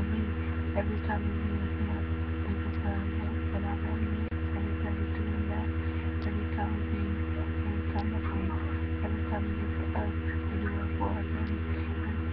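Steady electrical hum with several overtones, with faint scattered short sounds above it.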